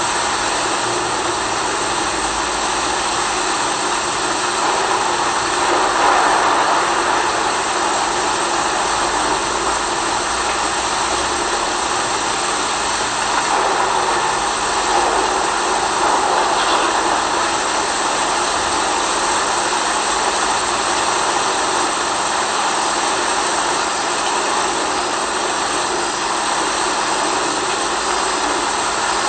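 Steady rain noise, a dense even hiss with no separate drops standing out, swelling slightly about six seconds in and again around the middle.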